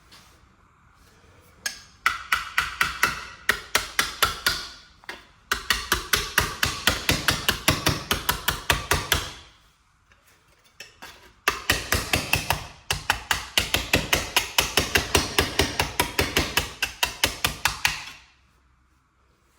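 Hammer tapping sheet metal in quick, even strikes at about five a second, in three runs with short pauses, to flatten and shape a rough bent metal panel.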